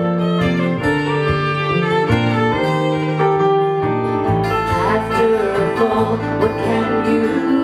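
Live band playing an instrumental passage: a fiddle plays a bowed melody over strummed acoustic guitars and electric bass.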